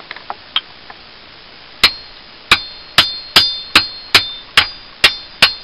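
Thin-bladed Cold Steel Latin machete chopping into a piece of pine: about nine sharp strikes at roughly two a second, starting a couple of seconds in. Each strike has a short high ring from the blade.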